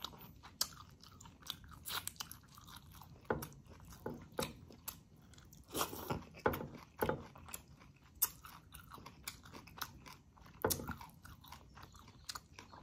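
Close-miked eating sounds of a person chewing chicken and mustard greens in coconut-milk sauce, with many short wet mouth clicks scattered irregularly through the chewing.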